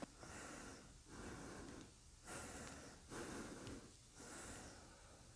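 A person breathing quietly close to the microphone: about five soft breaths in and out, roughly one a second.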